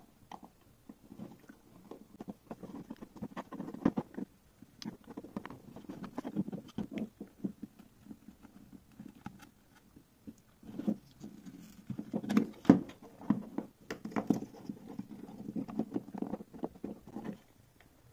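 Close handling noise of a circuit board and plastic housing: irregular rustling and scraping with small clicks as wire connectors are pushed into their sockets, with a few sharper clicks about two-thirds of the way through.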